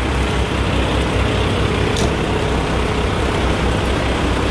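Diesel engine of a Kenworth semi-truck idling with a steady low rumble, with a short click about two seconds in.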